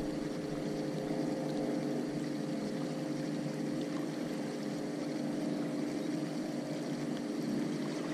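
Steady, even-pitched drone of a motorboat engine running on the river, over a low hiss of water and air.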